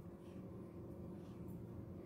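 Quiet room tone: a faint, steady low hum with no distinct sounds.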